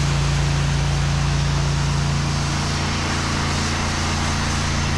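Pressure washer running steadily: an even engine hum under the hiss of water spraying.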